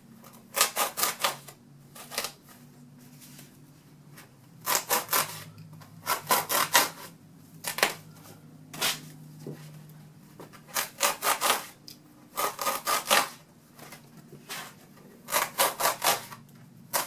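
A blade sawing back and forth through a foam pool noodle, cutting V notches, in short bursts of quick rasping strokes about five a second with pauses between them.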